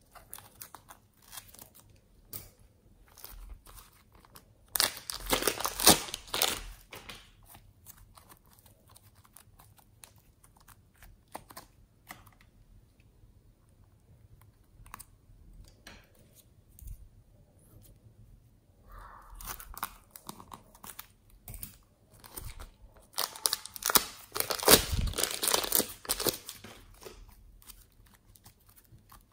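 Slime being squeezed out of a plastic piping bag and squished between the fingers, with two longer loud stretches, one about five seconds in and one near the end, and quieter handling in between.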